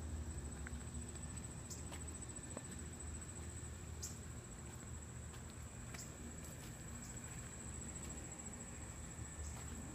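Faint outdoor ambience: a steady high-pitched insect buzz over a low rumble, with a few soft clicks.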